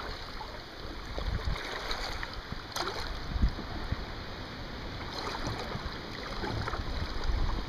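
Kayak paddle strokes dipping and splashing in flowing river water, over the steady rush of the current, with a few sharper splashes.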